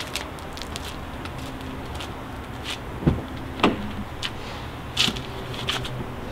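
Ford Focus RS Mk2's driver's door being unlatched and opened: a few sharp clicks and knocks, the loudest about five seconds in, over a steady low hum.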